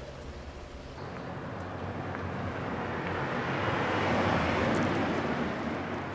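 A vehicle passing by: a rush of noise that swells from about a second in, is loudest around four seconds in, then fades.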